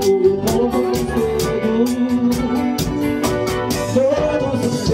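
Live band music: electric guitar and drums, with cymbal strokes about four a second and a man singing into a microphone. The percussion drops out briefly near the end.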